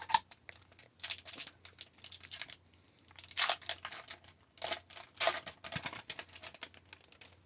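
A trading card pack wrapper being torn open and crinkled, with the cards inside shuffled out: irregular crackling and rustling that dies away near the end.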